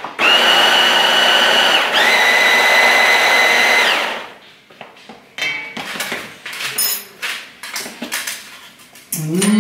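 Hand-held stick blender with a chopper-bowl attachment chopping salsa: the motor whines in two pulses of about two seconds each and stops about four seconds in. After that come a few light clicks and knocks as the chopper is taken apart.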